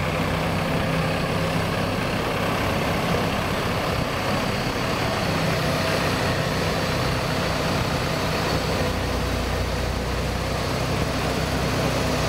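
Heavy snowplough truck's diesel engine running at low revs while the truck reverses slowly, its engine note shifting a couple of times.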